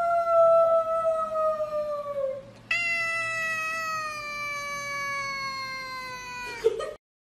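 Tabby-and-white cat giving two long, drawn-out meows, each sliding slowly down in pitch. The first is already under way and ends a little over two seconds in; the second starts just under three seconds in and lasts about four seconds.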